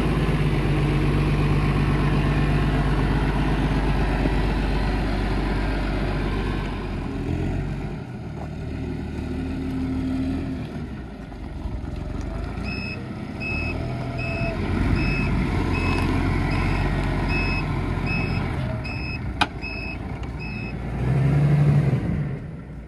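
A vehicle engine running steadily. In the second half a reversing alarm beeps evenly, about one and a half times a second, for some eight seconds. A single sharp knock comes near the end.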